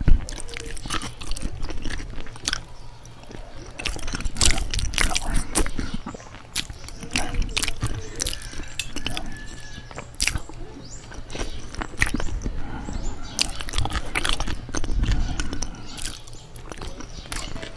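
Close-miked chewing of soft food such as sweet potato and tomato, with wet mouth clicks and lip smacks coming irregularly.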